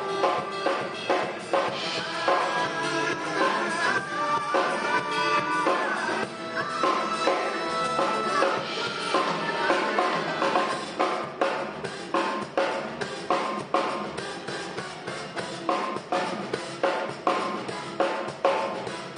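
Premier drum kit played in a busy funk groove with a running sixteenth-note feel, snare and bass drum strokes over it, along to a recorded funk band track whose held horn-like notes sound over the drums.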